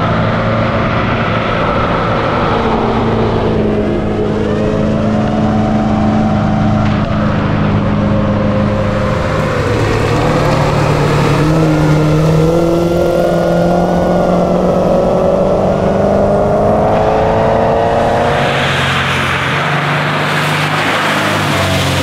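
Ford Falcon Pursuit 250's V8 engine under hard acceleration, its revs climbing and dropping several times through the gear changes. Near the end a loud rushing noise takes over from the engine note.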